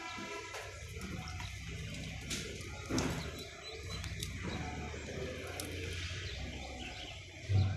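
A hand working in a tub of water among lotus leaves and floating weeds, with small splashes and drips and a sharper slosh about three seconds in. Faint bird chirps sound behind it, and a low thump comes near the end.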